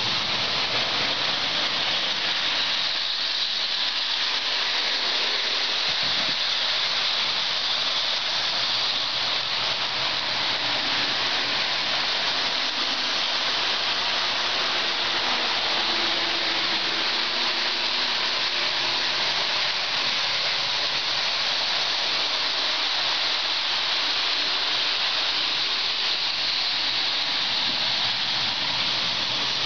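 Lionel O-gauge model trains running on the layout's three-rail track: a steady whirring, hissing rumble of wheels and electric motors that does not change.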